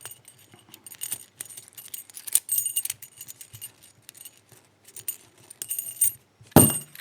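A pair of padlock keys jingling together and clicking against the lock as the key is put in and turned to operate the padlock, with a louder clunk near the end.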